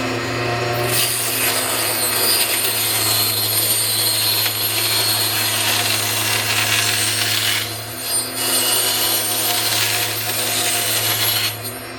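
MicroLux micro tablesaw with a 2-inch blade running steadily with a low motor hum while it rips thin wood veneer. The cutting noise starts about a second in, drops out briefly about two-thirds of the way through, resumes, and stops shortly before the end while the motor keeps running.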